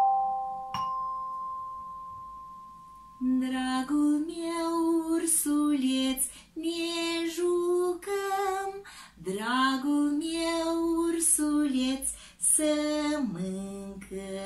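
Two mallet strikes on tuned chime bars, their notes ringing and fading over about three seconds. Then a woman sings a gentle children's song with no accompaniment.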